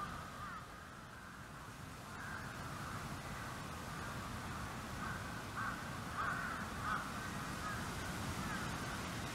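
A chorus of animal calls: many short, squeaky notes overlapping without a break, with a few louder calls about six and seven seconds in.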